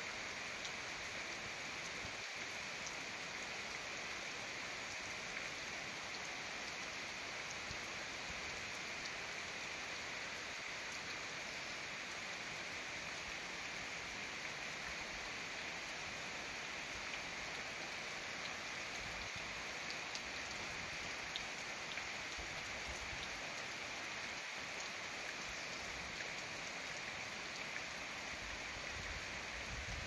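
Steady rain falling: an even hiss, with a few faint drop ticks now and then.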